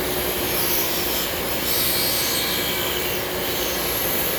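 Steady whir of a running shop grinding machine with a hand-held metal piece pressed against it in rasping passes, the loudest pass about two seconds in; the work heats the piece.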